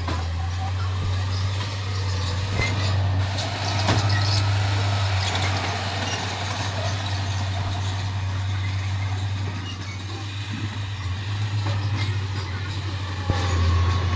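Heavy diesel earthmoving machinery running steadily with a low engine drone, with a few sharp clanks about three and four seconds in and again near the end.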